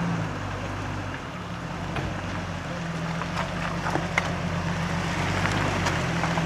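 Off-road 4x4's engine running steadily at low speed, with scattered clicks and knocks over it.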